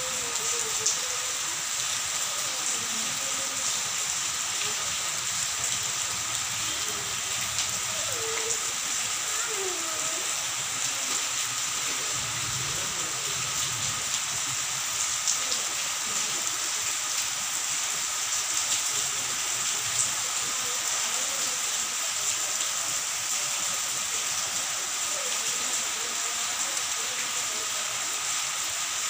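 Steady rain falling on a wet paved road, an even hiss of drops that holds at one level throughout.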